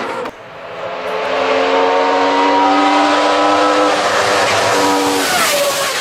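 Judd V8 race engine of the BMW 134 hillclimb car screaming at high revs, growing louder as it comes near. About five seconds in its pitch drops as it passes.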